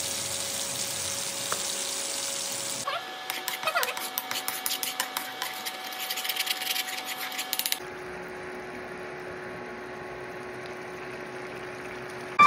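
Fish pieces sizzling as they fry in hot oil in a non-stick pan. After about three seconds comes the rapid clicking and scraping of a spatula stirring thick curry masala in the pan, and then a quieter, steady simmer of the fish curry. A faint steady tone sits beneath throughout.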